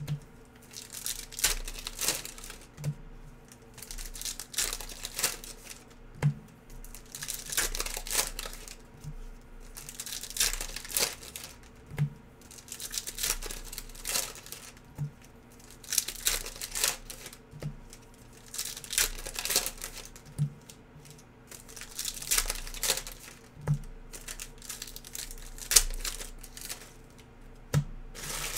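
Plastic trading-card packaging being handled: crinkling and tearing in repeated bursts every second or two, with soft knocks on the table.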